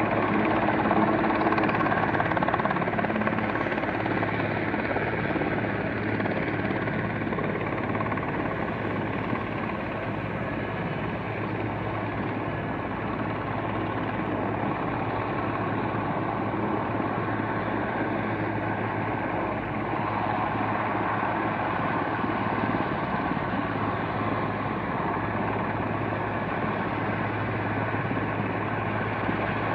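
Helicopter hovering, a steady drone of rotor and engine with a constant low hum. It eases off slightly about a third of the way in and picks up again about two-thirds in.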